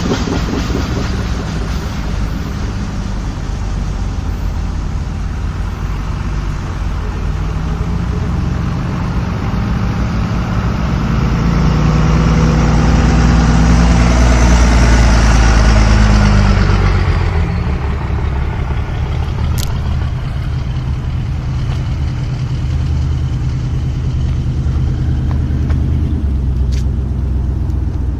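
Motor vehicle engines running steadily, with one vehicle passing close, its sound swelling and then fading between about ten and seventeen seconds in.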